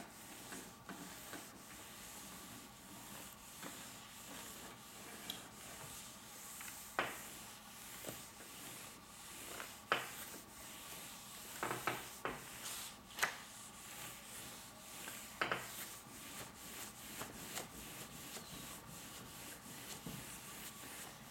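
A household iron sliding back and forth over silicone release paper, a faint dry rubbing, heat-pressing a painting onto dry-mount film. A few light knocks come as the iron is shifted.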